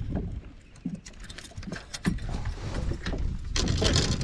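Scattered knocks and clicks of fishing gear being handled on a bass boat's deck, over a low rumble. A rush of noise swells near the end.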